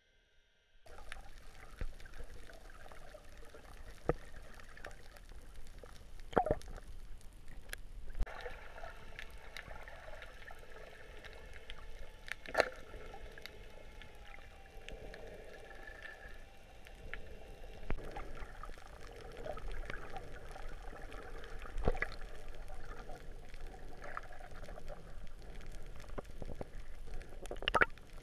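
Muffled underwater sound heard through a camera's waterproof housing: a steady sloshing, gurgling wash of water, broken by a handful of sharp clicks and knocks.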